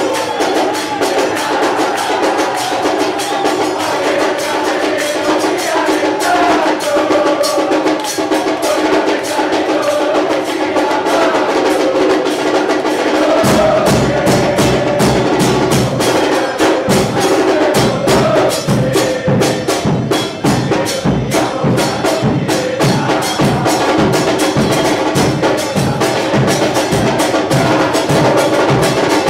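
Crowd of Boca Juniors supporters singing a football chant in unison, with sharp rhythmic clapping. About halfway through, deep drums come in with a steady beat of about two a second.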